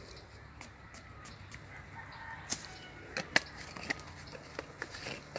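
A rooster crowing faintly, a drawn-out call about two seconds in, with scattered sharp clicks and rustles through the second half.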